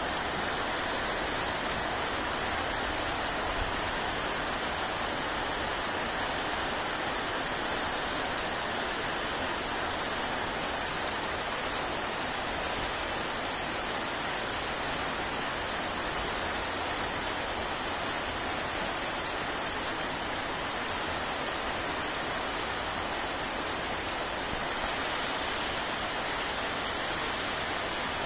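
Steady rain falling on leafy shrubs and banana leaves, an even hiss, with one sharp tick about three-quarters of the way through.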